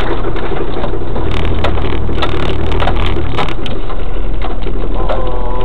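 Toyota Land Cruiser 4x4 driving over a rough forest track: a steady engine rumble with frequent knocks and rattles.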